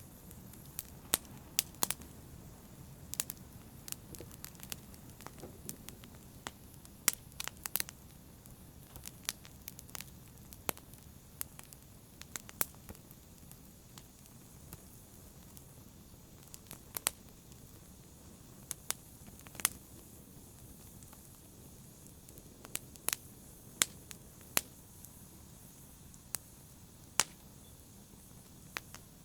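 A fire crackling: irregular sharp pops and snaps over a low, steady rumble of burning.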